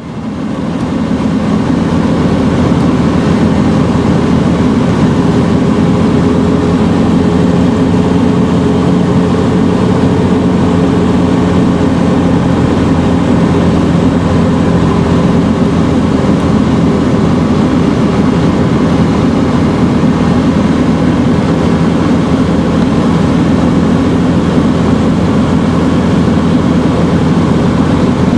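Scheibe SF 25 C Falke motor glider's piston engine and propeller running steadily, heard from inside the cockpit over rushing airflow. It fades in over the first couple of seconds.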